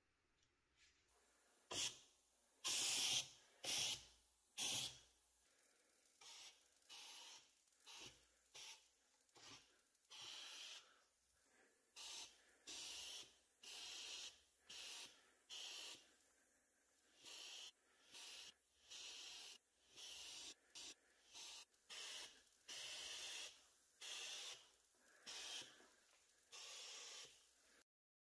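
A series of short hissing spray bursts, about two dozen, each under a second and irregularly spaced, with the few in the first five seconds louder than the rest.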